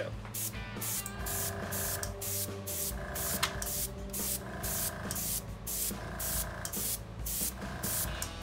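Airbrush spraying paint in short bursts of hiss, over background music.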